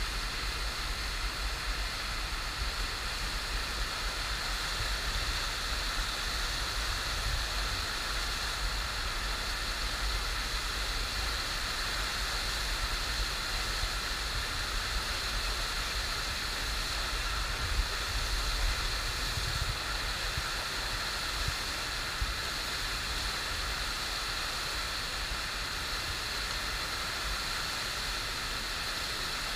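Steady rush of the FlowRider surf simulator's pumped sheet of water pouring up and over its wave surface.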